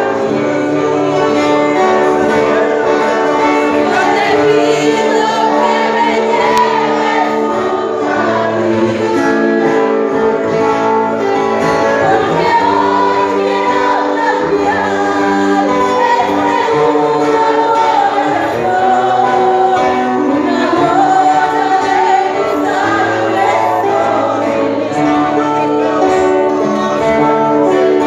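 Music with singing: a sung melody over sustained instrumental accompaniment, like a worship song.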